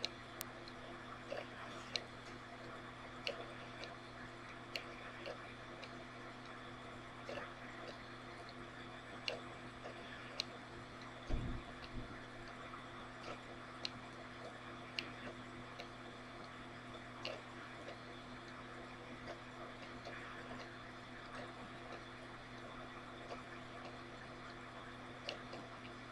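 Room tone: a steady electrical hum with faint sharp clicks scattered irregularly through it, and one low thump about eleven seconds in.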